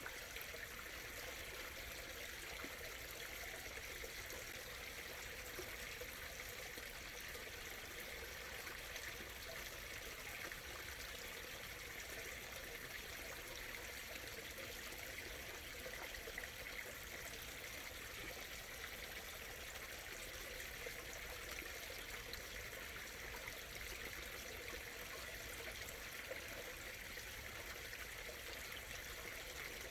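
A small stream murmuring steadily, water trickling over stones.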